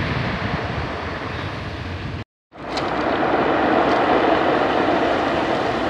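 Surf breaking and washing up a pebble beach, with wind buffeting the microphone in the first two seconds; the sound drops out briefly a little over two seconds in, then the surf wash carries on more evenly.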